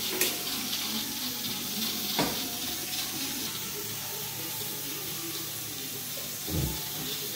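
Hot starch water from a pot of boiled rice being poured through a strainer into a kitchen sink, a steady splashing pour. There are a couple of short knocks early on and a dull thump near the end.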